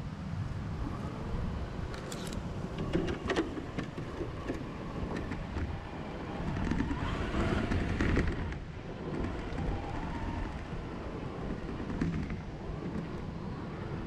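Onboard sound of a Traxxas TRX-4 RC crawler driving over dry pine needles and dirt: a steady low rumble of tyres and chassis with scattered crackles and clicks, loudest a little past the middle.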